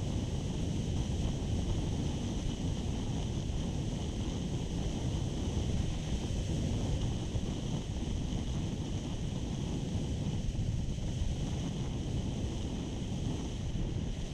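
Wind rushing and buffeting over an action camera's microphone on a moving motorcycle: a steady, dense rush heaviest in the low end.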